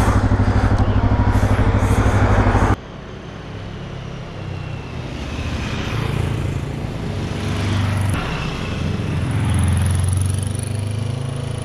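A motorcycle engine runs steadily and close up, then cuts off abruptly. Dual-sport motorcycles then approach and pass, their engines growing louder and rising in pitch.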